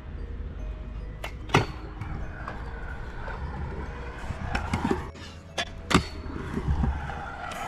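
Freestyle scooter wheels rolling on a concrete skatepark bowl, a low steady rumble broken by sharp clacks about one and a half seconds in and twice around six seconds in.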